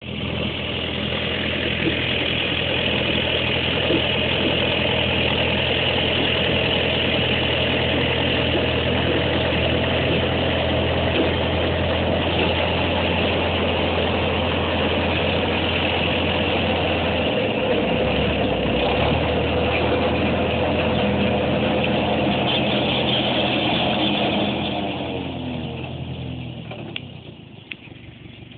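Carraro AgriUp 85 tractor's engine running steadily at work, with a high whine over it; the sound fades away over the last few seconds.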